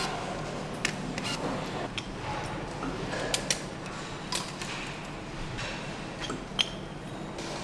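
Irregular sharp clicks and clinks of hand tools and parts being fitted to a Mercedes-AMG engine on the assembly line, over a steady low factory hum. The sharpest click comes near the end.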